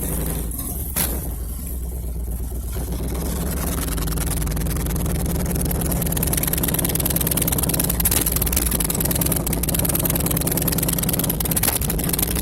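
Harley-Davidson 103 cubic-inch V-twin running steadily, a little fuller from about three seconds in, with a single sharp tick about a second in.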